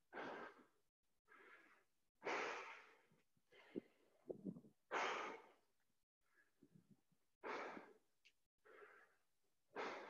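Heavy breathing of a person winded from burpees: about eight loud, noisy breaths, one every second or so, with short pauses between them.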